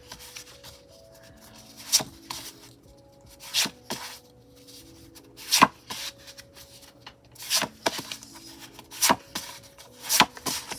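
Photo cards being handled and flipped through, with several sharp card snaps at irregular moments and soft rubbing between them. Quiet background music plays underneath.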